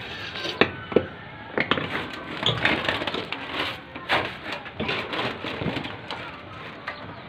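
Footsteps in flip-flops on corrugated metal roofing: a string of irregular knocks on the roof sheets.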